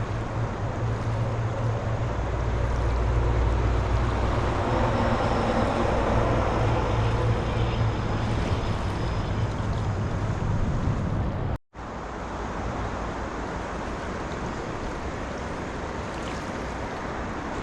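Steady rushing noise of river water with wind buffeting the microphone, a low rumble underneath; the sound cuts out for an instant about twelve seconds in, then carries on a little quieter.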